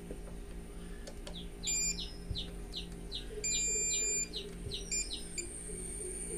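Mastech MAS830L digital multimeter's continuity buzzer beeping as the probes bridge the fuse: a short beep just under two seconds in, then a longer steady beep of nearly a second, the sign that the fuse is intact. Birds chirp repeatedly in the background.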